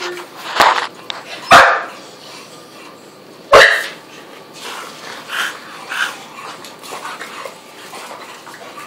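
Dog barking in play while a bulldog and a shorty bull wrestle: three loud barks in the first four seconds, then several softer ones.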